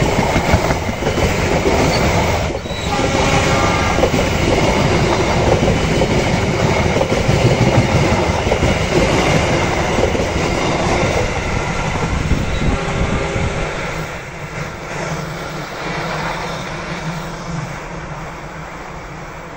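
Passenger coaches of the Argo Wilis express train rolling past close by at speed, their steel wheels clattering over the rails. The sound fades from about two-thirds of the way through as the last coach moves away round the curve.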